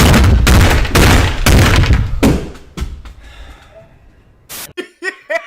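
A very loud, distorted burst of heavy thumps and crashing noise that dies away over about three seconds. A short sharp hiss follows near the end.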